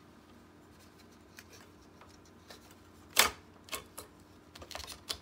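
A sharp plastic click about three seconds in, followed by a few lighter clicks and taps, as a plastic piece inside an Epson SureColor P600 printer is worked out of its retaining clip.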